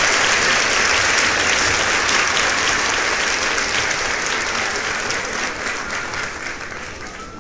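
A crowd applauding: dense clapping from many hands that fades steadily.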